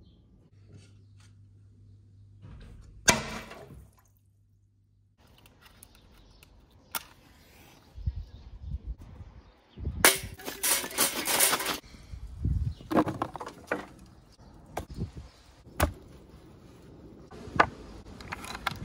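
Knocks and clatters of cooking gear being handled. About ten seconds in comes a loud clattering stretch of nearly two seconds, as a metal charcoal chimney starter is handled on stone, and there are a few sharp knocks near the end.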